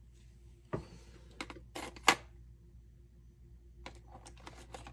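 A few light clicks and taps of a hand driver and the airsoft rifle's parts being handled on a workbench, the sharpest about two seconds in, then a few faint ticks near the end.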